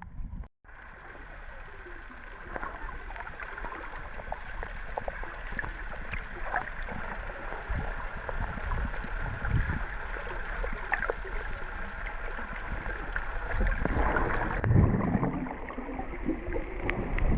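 Sea water sloshing and gurgling against the hull of a small boat.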